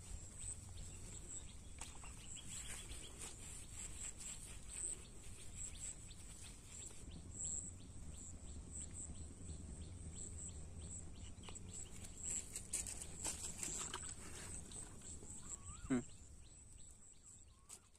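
Outdoor rural ambience: a steady, high-pitched pulsing chirr with a low rumble under it, and one short, sharp sound about sixteen seconds in.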